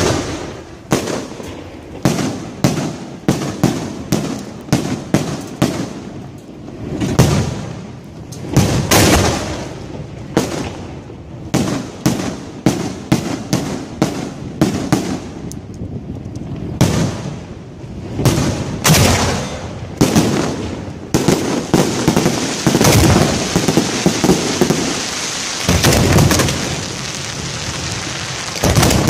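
Fireworks fired at close range: a rapid run of sharp bangs, one or two a second, from shells launched off the racks and bursting. About two-thirds of the way in, the bangs thicken into a dense, continuous crackling barrage.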